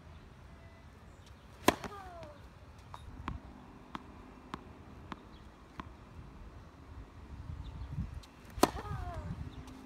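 Two tennis serves, each a sharp crack of racket on ball followed by a brief falling ring from the strings, the first about one and a half seconds in and the second near the end. Between them come fainter ball bounces on the hard court.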